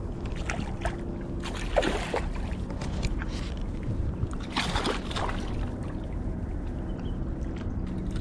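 Seawater lapping and sloshing against a concrete seawall over a steady low rumble, with brief louder swishes about two and five seconds in.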